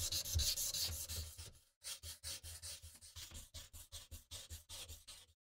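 Sharpening stone rubbed in quick back-and-forth strokes along the edge of a steel Bowie knife blade held in a guided sharpening clamp. There is a short pause a second and a half in, and the strokes stop shortly before the end.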